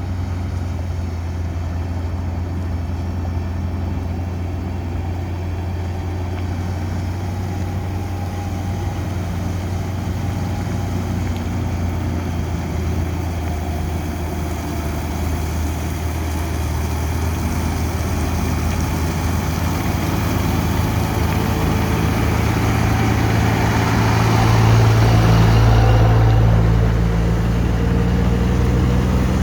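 Engine of a heavy road-construction machine running steadily, growing louder about three-quarters of the way through and then easing back a little.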